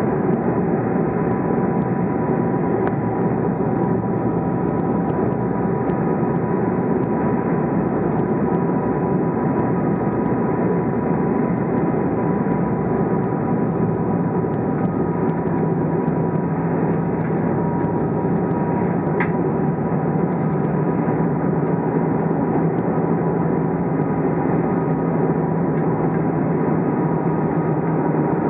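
Cabin noise of an ATR 72 twin turboprop on final approach: the engines and propellers drone steadily, with a few steady tones over the rushing noise. A lower hum joins about halfway through.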